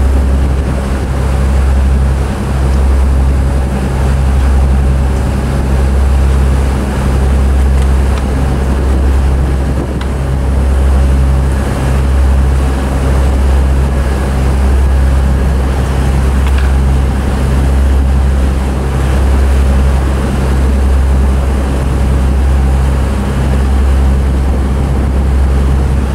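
Motorboat engine running steadily with the boat under way, a low drone with water rushing in the wake. The loudness eases and swells gently every couple of seconds.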